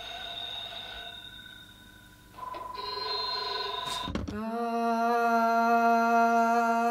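Modified 1960s telephones ringing in steady tones, one ring fading out and another starting. About four seconds in, a handset is lifted with a short clatter, and a steady 'om' drone begins from the answered phone.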